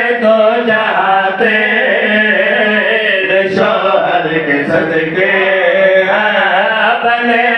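A male voice chanting an Urdu devotional qasida through a microphone, in long held notes that bend up and down without a break.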